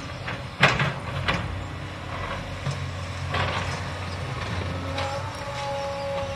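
Demolition machinery working: diesel engines running steadily under crashes and knocks of breaking rubble and debris, the loudest crash just over half a second in and smaller ones after. A steady whine comes in near the end.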